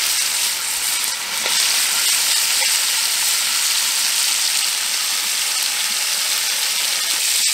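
Veal rump steaks searing in hot oil in a cast-iron Dutch oven, sizzling steadily.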